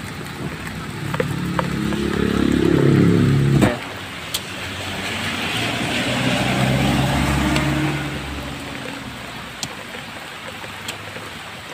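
Motor vehicles passing on a road, one engine rising in pitch as it speeds up and cutting off suddenly about four seconds in, then a second engine swelling and fading away. A light hiss of drizzle and a few sharp clicks run underneath.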